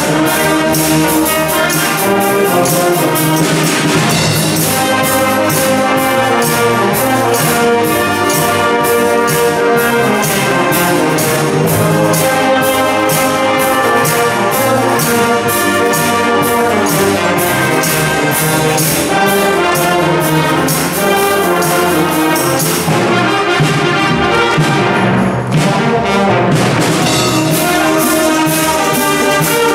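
School wind band playing an upbeat pop arrangement, brass carrying the tune over a steady drum beat. The drums and cymbals drop out for a few seconds about 23 seconds in, then come back.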